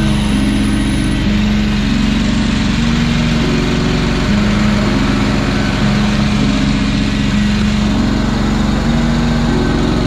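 Stand-on lawn mower's engine running steadily under the operator, with a set of low steady tones that change pitch in steps every second or so.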